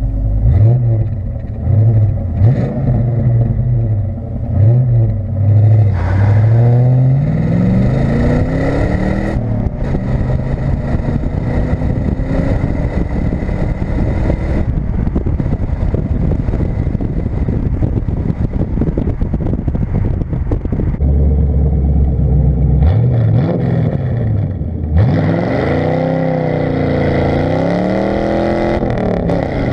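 1989 Fox-body Mustang exhaust heard at the tailpipe while driving on the stock exhaust: the engine note climbs in pitch as the car accelerates, then runs steadily under road noise. About 25 seconds in it changes to the same car with the mufflers deleted, the exhaust note rising and falling with the throttle.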